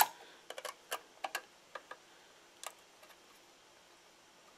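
Clicks and ticks of a small circuit board being pressed and rocked onto its header pins inside a radio receiver: one sharp click at the start, then a scatter of lighter ticks over the next couple of seconds that die away.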